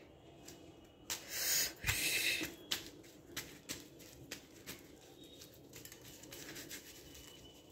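Rustling and light crackling of a layered lachha paratha handled in the hands as it is lifted off the plate. The loudest rustle comes about a second in, followed by scattered light crackles.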